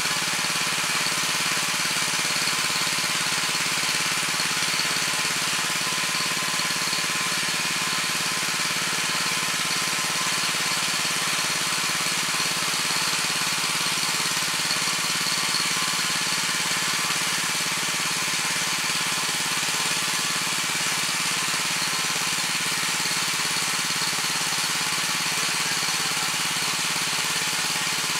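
Weima WM 900 7-horsepower walk-behind tiller running steadily, its rotary tines working through hard, compacted soil.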